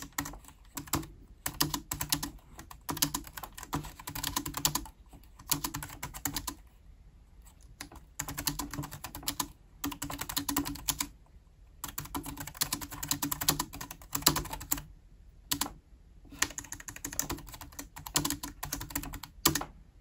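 Typing on an Omoton KB066 compact Bluetooth keyboard: fast runs of key clicks, broken by short pauses of about a second between phrases.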